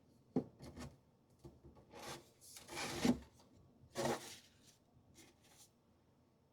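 Things in a kitchen drawer being handled and slid around: a sharp click, then scraping and rubbing about two to three seconds in and again at four seconds, followed by a few light clicks.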